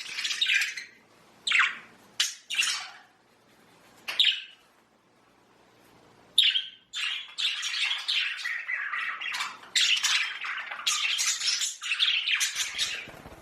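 Budgerigars chirping and squawking: a few separate calls in the first seconds, then continuous chattering from about six seconds in.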